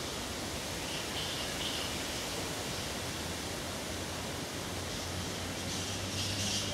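Steady outdoor background noise: an even hiss with no distinct events, joined about five seconds in by a faint low hum.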